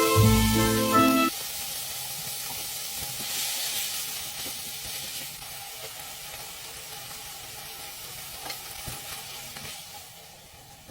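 Background music with mallet notes stops about a second in; then food sizzles and crackles steadily in a frying pan, easing off a little near the end.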